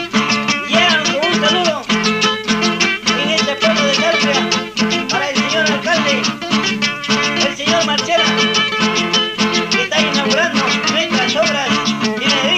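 Andean folk band music: guitar and other plucked strings over a steady, evenly strummed beat, with a melody line moving above.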